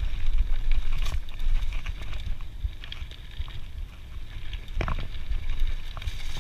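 Scott Genius mountain bike riding fast over dirt singletrack: a steady low rumble of wind on the camera microphone, with tyre noise on the trail and scattered clicks and rattles from the bike. The sharpest knocks come about a second in and near five seconds.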